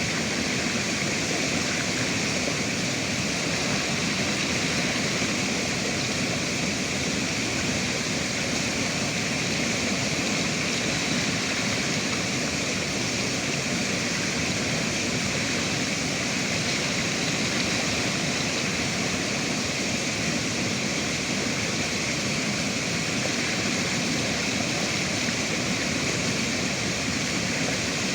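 Steady rush of river water flowing, an even roar without pauses or distinct splashes.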